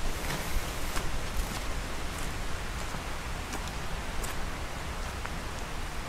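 Steady rush of flowing stream water, with a few faint clicks scattered through it.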